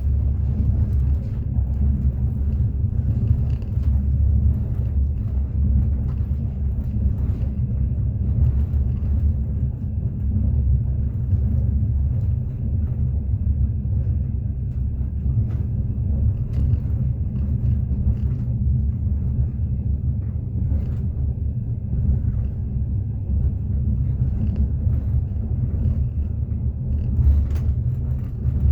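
Moving train heard from inside the carriage: a steady low rumble of the wheels on the track, with occasional faint clicks at irregular intervals.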